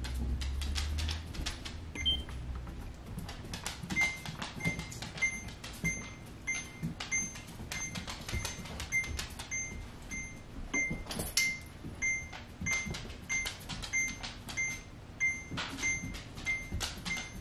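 Electronic beeping from a camera gimbal: a short high beep repeating two to three times a second, starting about four seconds in. It runs over rapid, irregular clicking and tapping, with a low rumble of handling in the first second.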